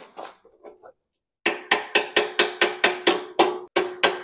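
Hammer blows on the upper mounting bolt of a Harley-Davidson Shovelhead's rear shock absorber, driving the bolt out to free the shock. The steady run of sharp metal-on-metal strikes starts about a second and a half in and goes at about four blows a second, each with a short ring.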